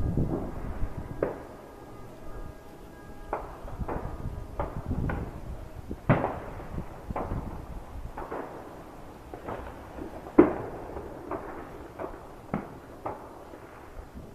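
Fireworks and firecrackers going off, a scattering of irregular bangs and pops with a short echo after some. The loudest bang comes about ten seconds in.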